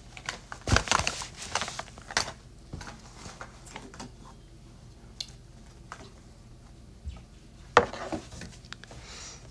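Handling noise close to the phone's microphone: clicks, knocks and rustling as things are moved about, busiest about a second in, with one sharp knock near the end.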